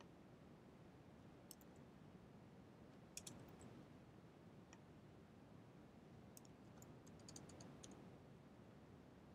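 Faint computer keyboard clicks over quiet room tone: a few separate taps, then a quicker run of keystrokes near the end.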